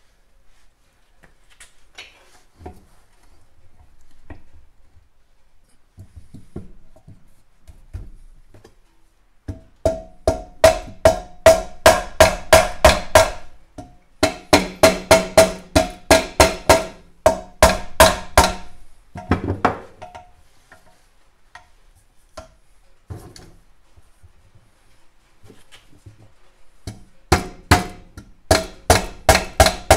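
Rubber mallet striking the aluminium crankcase of a 1964 Norton Atlas engine to split the case halves: quick runs of taps, about three or four a second, each with a short ring. Two long runs come in the middle and another near the end, with quieter knocks and handling noises between.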